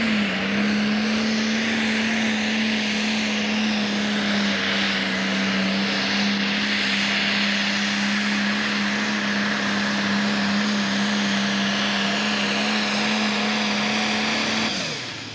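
International Harvester Pro Stock pulling tractor's turbocharged diesel engine held at full throttle under load while dragging the weight-transfer sled: a loud, steady drone. It drops away sharply about a second before the end as the throttle comes off.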